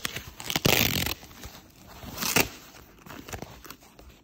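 Foam packing sheets and plastic wrap being pulled and torn open by hand, crinkling throughout, with a loud rip about half a second in and a shorter one a little past two seconds.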